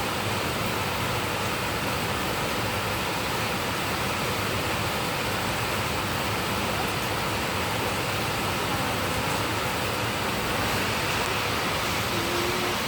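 Heavy rain falling steadily, an even rushing hiss with no breaks.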